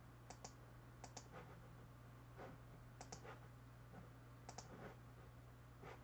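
Faint computer mouse clicks, mostly in quick pairs, a few times, over a low steady hum.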